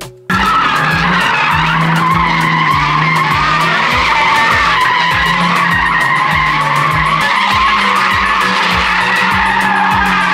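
Car tyres squealing continuously in a burnout or drift, the engine held at high revs under a steady, wavering screech.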